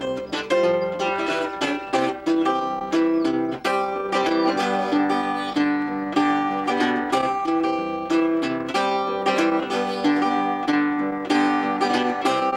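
Acoustic fretted string instrument picked at a steady pace, plucked notes ringing over a held low note.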